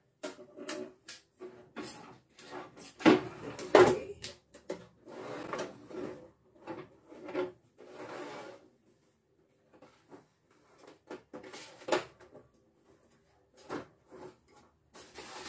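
Plastic clicks and knocks as the clear lid of a food processor's plastic blade storage box is handled, with the loudest knocks about three to four seconds in, mixed with the rustle of packing paper being pulled out.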